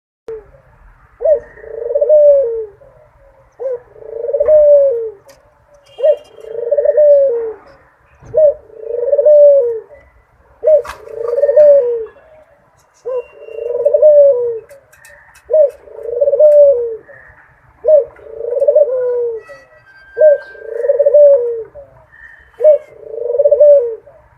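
A dove cooing over and over, about ten calls evenly spaced every two to three seconds. Each call is a short clipped note followed by a longer, swelling coo.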